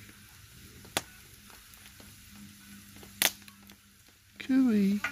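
Chips frying in oil in a pan over a campfire: a quiet steady sizzle with two sharp pops, about a second in and a little after three seconds. Near the end a voice gives a brief call.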